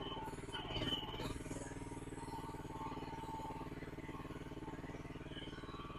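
Mini excavator engine running steadily, with a brief louder noise about a second in.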